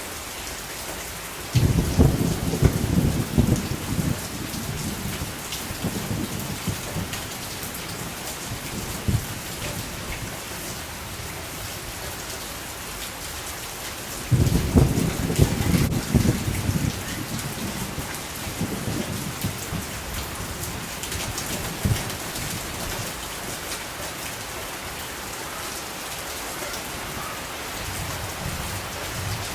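Steady rain falling, with two spells of low rumbling, one starting a couple of seconds in and another about halfway through, each lasting a few seconds.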